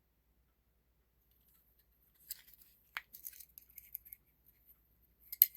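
Light handling noise: faint scrapes and small clicks starting about two seconds in, with a sharper click near the end.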